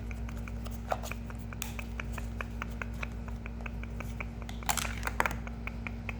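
Steady mechanical ticking, about three to four ticks a second, with a few louder clicks and rustles about a second in and again near the end, over a low steady hum.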